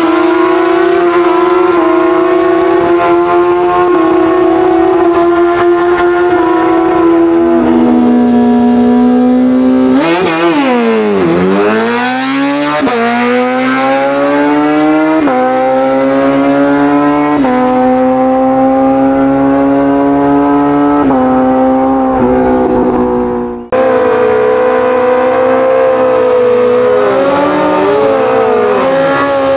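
Drag-racing superbike engines at full throttle, a high whine whose pitch climbs and drops back at each upshift, several times over. After a sudden cut about 24 s in, a superbike engine revs up and down at the start line.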